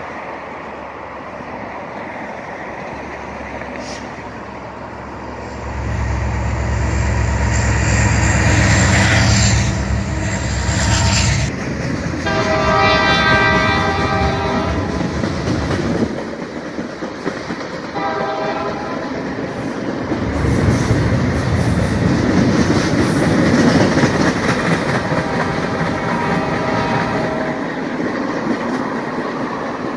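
Union Pacific diesel freight train passing below. The locomotive's engine rumbles past about six seconds in, then its air horn sounds for a grade crossing: one long blast, a short one a few seconds later, and fainter blasts after that. The freight cars roll by with steady wheel clatter throughout.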